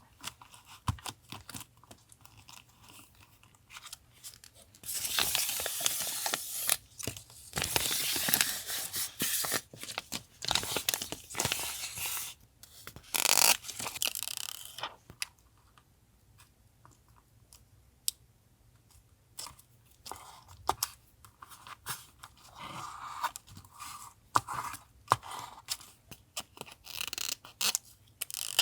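Paper being torn by hand: several long, crackly tearing strokes through the middle, with light taps and paper handling before and after.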